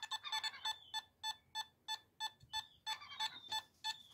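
Nokta Makro Simplex metal detector beeping a short high tone about three times a second: its target signal as a silver half crown is passed back and forth in front of the search coil.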